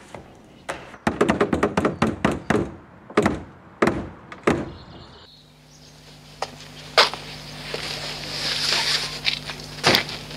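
A quick run of knocks and thuds as a notebook and things on a table are handled and put down, followed by a few single knocks. About halfway through they give way to a steady low hum and outdoor background noise, with a couple of clicks.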